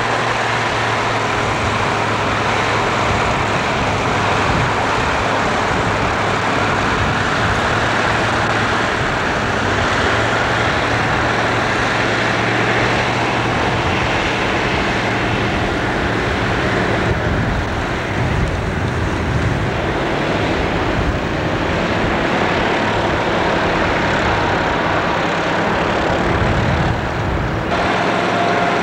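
Engine of an open-chassis homemade vehicle running steadily as it drives, under a dense rushing noise.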